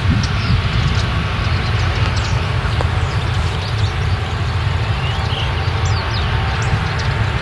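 Claas Lexion combine harvester running steadily while harvesting grain: a continuous deep engine and threshing rumble, with a few short faint high chirps over it.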